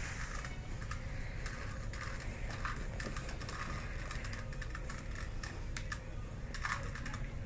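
Rubik's Cube being twisted by hand: rapid, irregular plastic clicks as its layers turn.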